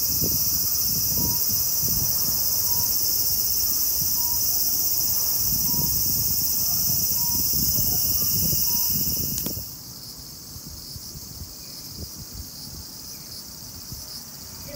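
Loud, steady, high-pitched shrilling of an insect chorus, with a low rumble of wind beneath. About two-thirds of the way through it drops suddenly and goes on more faintly.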